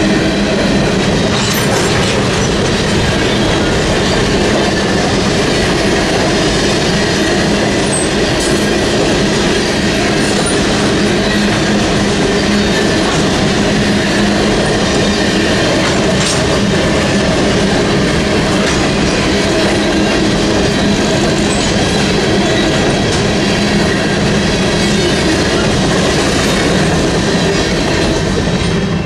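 A freight train of covered hopper cars rolling steadily through a level crossing, its steel wheels running over the rails and the crossing. The crossing's electronic bell rings as the train passes. The end of the train reaches the crossing near the end.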